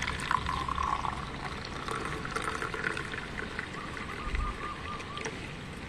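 Warm herbal drink being poured out, a steady trickle of liquid.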